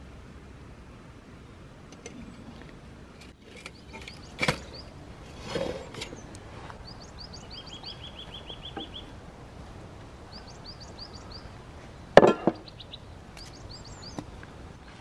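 Small birds chirping in short repeated phrases, with one brief trill. Over this come a few sharp knocks and clatters as a cooking pot is handled. The loudest is a double knock about twelve seconds in.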